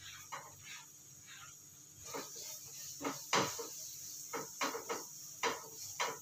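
A spatula stirring sliced chillies in a non-stick frying pan, with irregular scrapes and knocks against the pan over a steady hiss of sizzling oil. The knocks come thicker in the second half.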